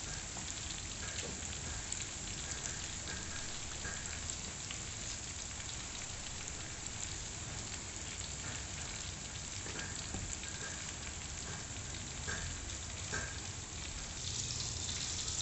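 Curry sauce bubbling and sizzling in a stainless steel wok, a steady rain-like hiss, as pieces of grouper are laid in, with a few faint clicks of a metal ladle. The hiss grows louder about a second before the end.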